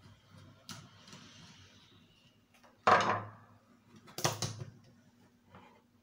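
Parts of an Arno fan's motor and plastic housing knocking and clattering against a table as it is taken apart: a light click about a second in, then two louder knocks, the second a quick rattle of several hits.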